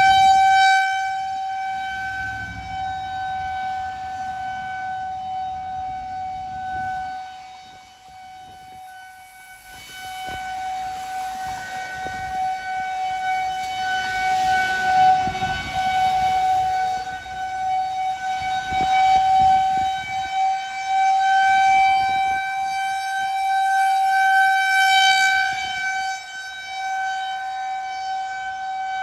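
Federal Signal 2001-130 outdoor warning siren sounding a steady single tone, growing fainter about eight seconds in and swelling louder again as its rotating head turns.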